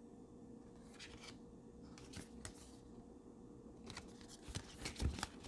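Faint rustling and light clicks of paper greeting cards being handled and shuffled, with a few sharper ones near the end.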